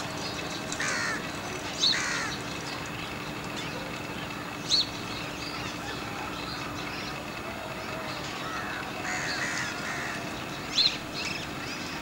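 Crows cawing at intervals, with a few sharp, high single bird calls standing out loudest, over a faint steady hum of background ambience.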